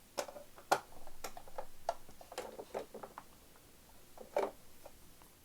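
Light, irregular clicks and taps of hard plastic toy figures and playset parts being handled, with faint clattering between them.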